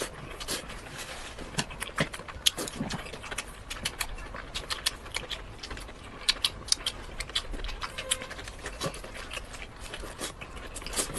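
Close-miked eating: rapid wet chewing, lip smacks and mouth clicks, several a second.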